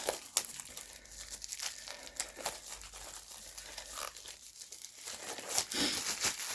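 Plastic shrink-wrap crinkling and tearing as it is cut open with a knife and peeled off a steelbook case, with louder crinkling near the end.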